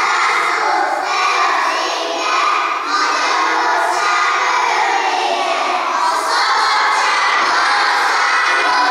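A group of first-grade children's voices in loud unison, a chorus of young voices performing together without pause.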